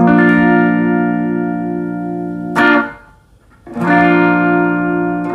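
Semi-hollow electric guitar playing a B-flat major barre chord at the sixth fret. The chord is struck and left to ring, then gets a short sharp stroke about two and a half seconds in and is muted briefly. It is struck again and rings on.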